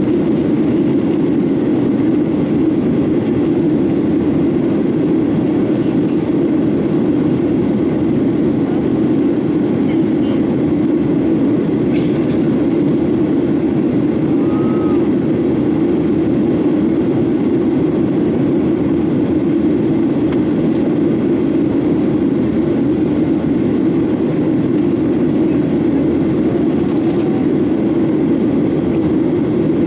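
Steady cabin drone of a Boeing 737-800 climbing out, its CFM56-7B jet engines and rushing airflow heard from a window seat inside the passenger cabin, a constant low hum with no change in level.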